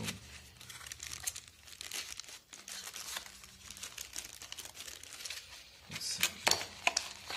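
Clear plastic wrapping crinkling and crackling irregularly as a boxed beard trimmer is pulled out of its white cardboard inner box, loudest about six seconds in.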